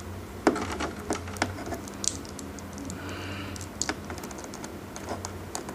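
Small, irregular plastic clicks and taps from a jointed S.H. Figuarts action figure and its hand-held accessory being handled and posed, with a brief rubbing rustle about three seconds in.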